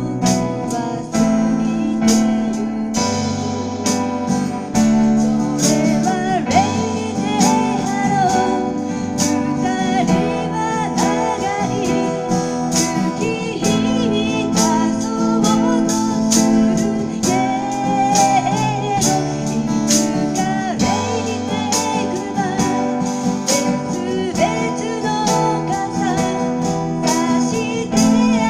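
Live band music: acoustic guitar strumming with keyboard accompaniment, and a singer's voice carrying the melody from about five seconds in.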